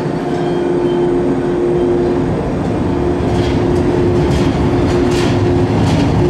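JR 115-series electric train pulling out of a station, its running noise steady with a hum. From about three seconds in, the wheels click on the track as the cars pass.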